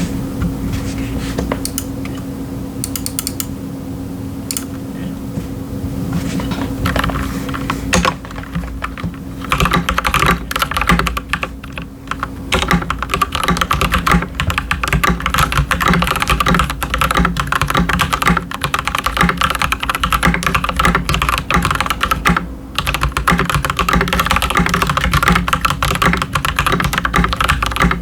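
Typing on an Akko 3098S mechanical keyboard with linear red switches (Gateron G Pro Red, Keychron Red on the numpad) and PBT keycaps. A few scattered keystrokes over a steady hum give way, about eight seconds in, to continuous fast typing, with a brief pause near the end.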